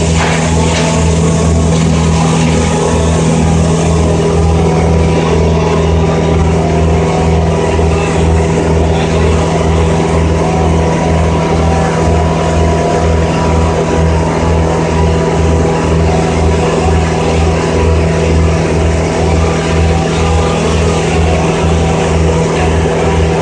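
An engine running steadily at one constant speed, with a low throb about twice a second and no revving up or down.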